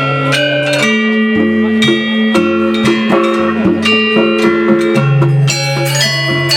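Balinese gamelan music: metallophone keys struck in quick melodic runs over held low ringing tones, with drum strokes.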